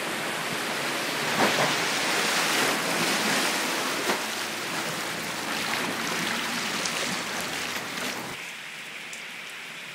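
Fast-flowing floodwater rushing and splashing, with cars pushing bow waves through the flooded road at the start. The rushing drops quieter about eight seconds in.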